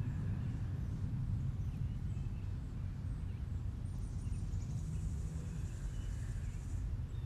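Outdoor ambience: a steady low rumble with faint high chirping, which grows into a thin high chatter from about four seconds in.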